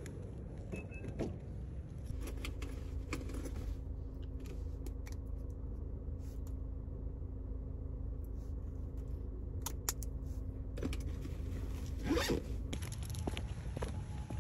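Small clicks and rustles of handling inside a car, over a steady low hum, with a short rasp near the end.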